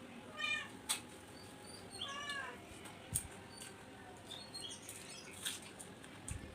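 A cat meowing twice, short high-pitched calls about half a second and two seconds in, over scattered soft clicks and smacks of eating by hand.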